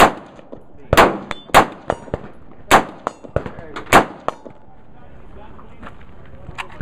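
AR-style .223 rifle firing semi-automatic: five loud shots spaced about a second apart, with fainter cracks between them. The firing stops a little after four seconds in.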